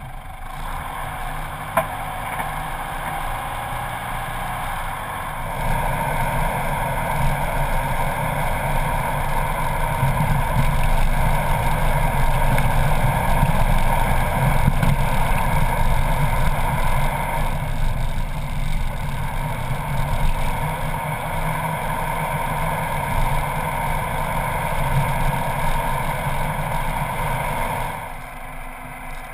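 A four-wheel drive driving on a sand and dirt desert track, heard from a camera mounted outside on the vehicle: steady engine, tyre and wind noise. It grows louder a few seconds in and drops near the end.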